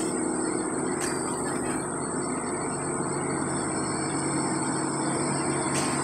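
Diesel engines of tandem asphalt road rollers running steadily as they roll across fresh asphalt toward the listener.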